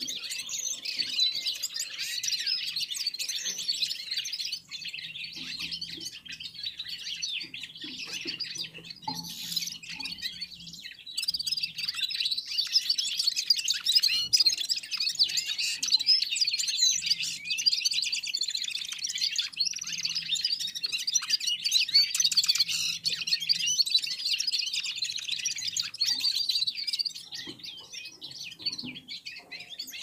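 Caged red-fronted serins singing together: a continuous run of fast, high, jingling twitters. It grows louder and fuller about eleven seconds in and drops back near the end.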